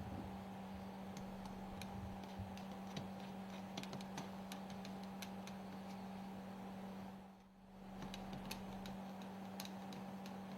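Light, irregular clicks of small metal parts being handled, over a steady low hum. The parts are the non-return valves being fitted into the lubricator's cylinder block. The sound briefly dips out about three quarters of the way through.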